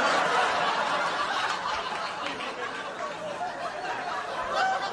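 Audience laughing, loudest at first and slowly dying down.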